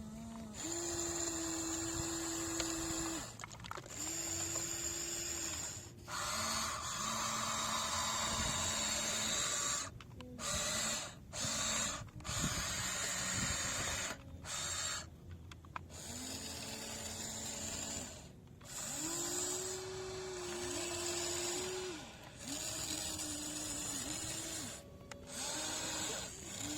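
Small electric motors of a radio-controlled construction model whining in repeated runs of one to three seconds. They start and stop again and again, and the pitch steps between a lower and a higher tone as the load or speed changes.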